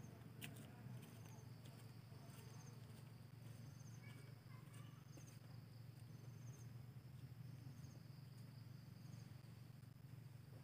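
Faint insects calling: a steady high whine with a short high chirp repeating roughly every one and a half to two seconds, over a steady low hum.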